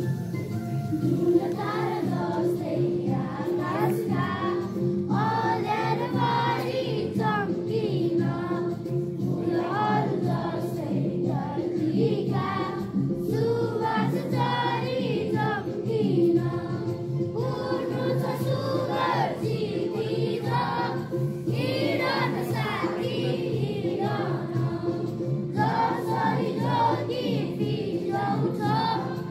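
A large group of schoolchildren singing a song together in unison, over steady sustained accompaniment notes underneath.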